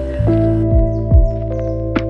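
Background music: held chords over a soft kick drum beating about every half second.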